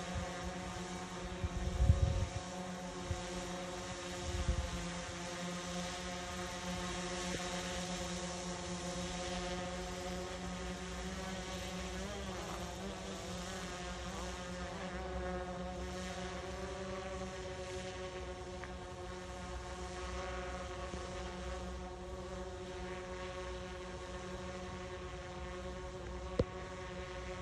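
Small quadcopter drone's motors and propellers buzzing steadily in flight, a pitched hum that wavers slightly as it moves. Low wind thumps on the microphone in the first few seconds and a single short click near the end.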